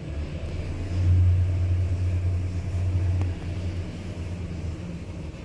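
Schindler 3300 elevator car travelling between floors: a steady low hum and rumble that swells about a second in and eases off after about three seconds.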